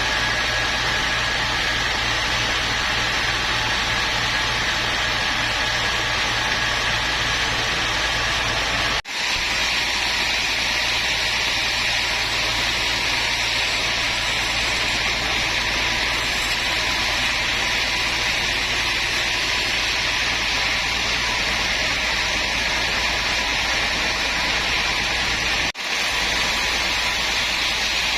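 Woodworking machinery running steadily, a constant hum and hiss with no change in load, broken twice by a momentary drop.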